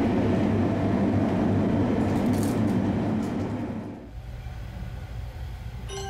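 Sunrise Seto sleeper train, a 285 series electric multiple unit, running at speed: steady running noise that is loud for about four seconds, then drops to a quieter low rumble.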